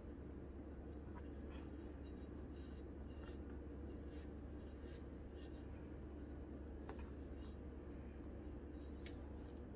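Faint scraping and rubbing of a metal scraper smoothing whipped cream around the side of a cake, with a few light ticks, over a steady low hum.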